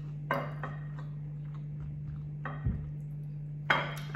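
A few light clicks and taps of cutlery and food containers being handled, with a soft low thump about two and a half seconds in, over a steady low hum.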